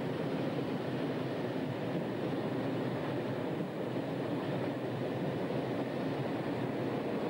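Freight train wagons rolling past on the tracks below, a steady rumble of wheels on rail. By near the end a second freight train is passing the other way on the next track.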